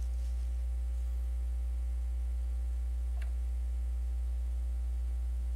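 Steady low electrical mains hum under quiet room tone, with one faint short sound about three seconds in.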